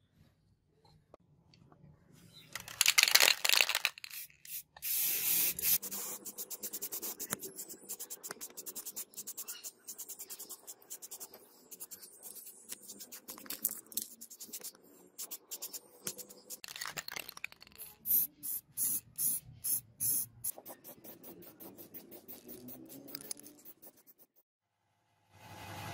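Aerosol spray-paint can hissing in repeated bursts: a few longer sprays about three and five seconds in, then many short ones, with a quick run of rapid bursts later on.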